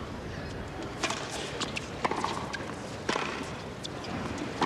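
Tennis ball struck by rackets on a hard court: a serve about a second in, then a sharp hit roughly every second as the rally goes on, over the steady hiss of an old broadcast.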